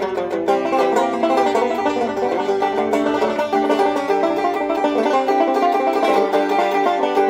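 Banjo played in a quick, steady stream of bright plucked notes, a lively bluegrass-style picking tune.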